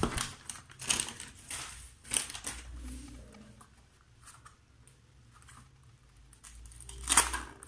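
Parcel packaging being handled and torn open by hand: irregular rustling and crackling with sharp tearing strokes, loudest right at the start and again near the end.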